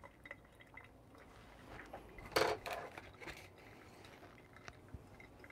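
Quiet pause with faint, brief handling noises: a short soft rustle about two and a half seconds in, a weaker one just under a second later, and a few light ticks.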